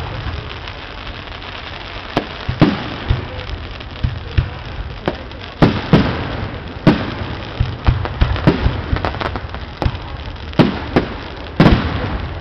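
Aerial firework shells bursting in quick succession: a dozen or more sharp bangs, each with a short echoing tail, over a steady low rumble.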